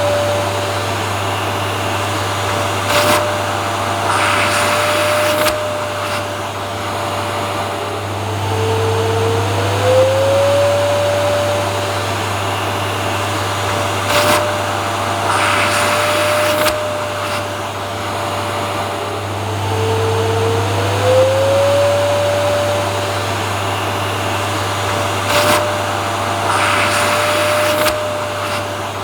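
Vacuum cleaner running steadily, its motor whine dipping in pitch and climbing back about every eleven seconds, with short surges of louder hiss in between, the same pattern repeating over and over.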